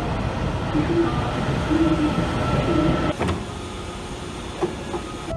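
Taiwan Railways Puyuma Express electric train pulling into an underground station platform: a steady rumble of the train. About three seconds in there is a single clunk, and the sound drops a little after it.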